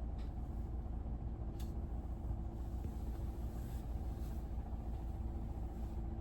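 Steady low mechanical rumble with a faint hum running through it, with no speech.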